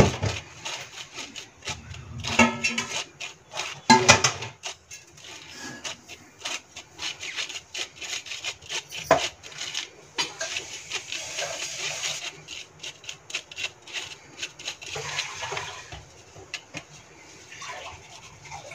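A metal spoon scraping and clicking against a fine wire-mesh sieve as it stirs ground spice powder through. Irregular scrapes throughout, loudest in two rasping bursts a few seconds in.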